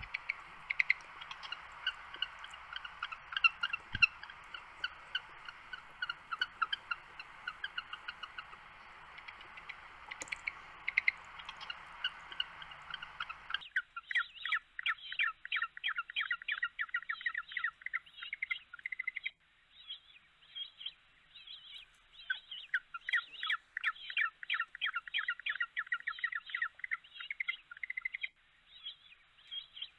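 Penguins calling in a rapid run of short, high chirps over a steady background hiss. About 14 seconds in it cuts abruptly to a cleaner recording of denser chirping, broken by a couple of brief pauses.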